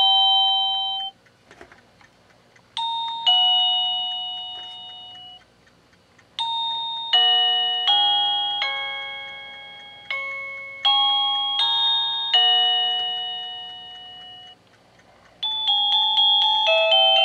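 Satu Brown wireless doorbell receiver playing its electronic chime tunes. A two-note high-then-low ding-dong ends about a second in, and another sounds at about three seconds. A longer tune of bell-like notes follows, each note struck and fading, and a quicker tune starts near the end.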